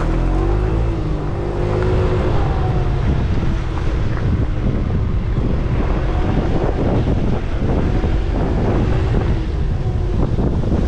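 Wind buffeting the microphone over the steady rumble of a scooter riding on rough ground. A motor's pitch rises and falls in the first few seconds.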